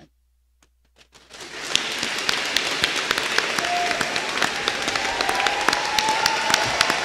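Crowd of graduates applauding: a few scattered claps, then about a second in the applause swells up quickly and holds steady.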